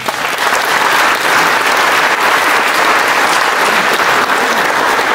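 An audience applauding: a dense, steady patter of many hands clapping that starts suddenly.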